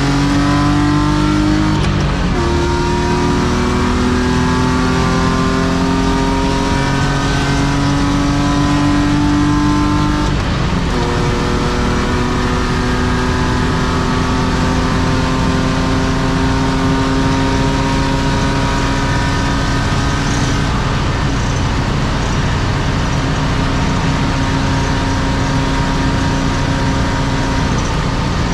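BMW E36 325i's M50B25 2.5-litre inline-six, fitted with aftermarket headers and exhaust, accelerating, heard from inside the cabin. The engine note climbs, drops at an upshift about 2 seconds in and again about 10 seconds in, then rises slowly in the higher gear over steady road noise.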